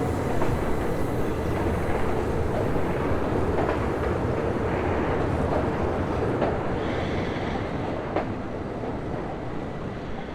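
Electric train running on rails: a steady rolling noise with a few faint wheel clicks over rail joints, fading away near the end.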